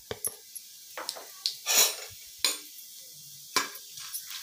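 Whole spices tipped from a ceramic plate into hot oil in an aluminium pressure cooker: several sharp clinks of the plate against the pot, the loudest about two seconds in, over a light sizzle of the oil.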